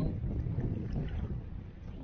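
Double-bladed kayak paddle stroking through shallow river water, with water washing past the kayak and wind noise on the microphone.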